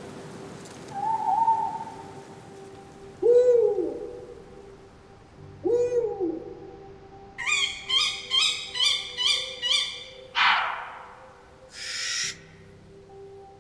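Owls calling in a forest: three short hoots that rise and fall in pitch, then a quick run of about eight harsh, high notes, a falling screech, and a hissing call near the end.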